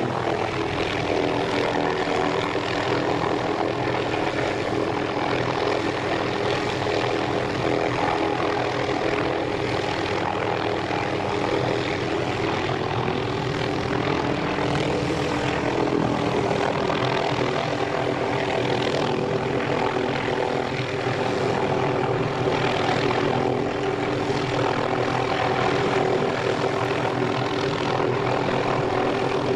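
Helicopter hovering, its rotor and engine running with a steady, unbroken hum of several tones over a rushing noise.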